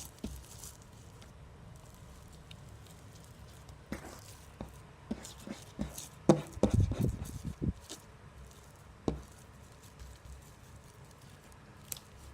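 Cloud slime being squished and kneaded by hand: scattered soft squelches and small pops, busiest about six to eight seconds in.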